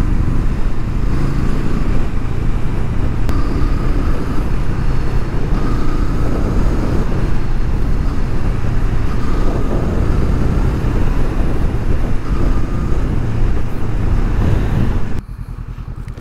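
Honda CL500's parallel-twin engine running steadily as the motorcycle is ridden along. The sound drops sharply to a much lower level about fifteen seconds in.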